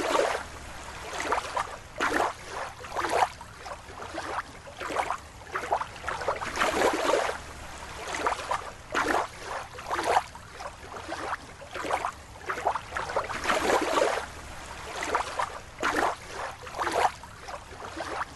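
Water sloshing and splashing in irregular swells, about one a second.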